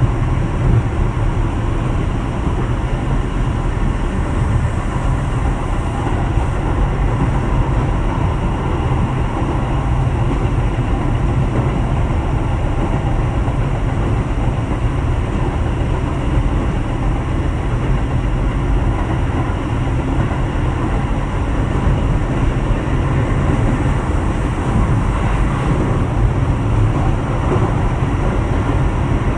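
Keio 7000 series electric train running steadily along the line, a continuous heavy rumble of wheels on rails with no clear change in speed.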